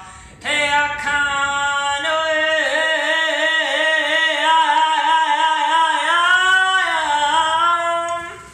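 Solo voice singing light language: long wordless held notes with a wavering vibrato. The pitch rises briefly and then falls back near the end before the voice stops.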